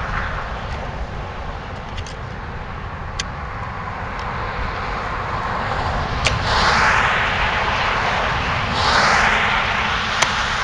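Outdoor noise: a steady low rumble of wind on the microphone, with two short swells of hiss about six and nine seconds in, like vehicles passing, and a few faint clicks.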